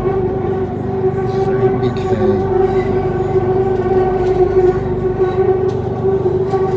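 Bangkok BTS Skytrain car running along the elevated track, heard from inside the carriage: a steady, even-pitched hum from the electric traction drive over the low rumble of the wheels.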